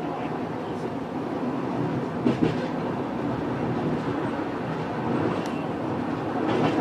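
Penang Hill Railway funicular car running downhill: a steady rolling noise of wheels on rails, with two sharp knocks a little over two seconds in.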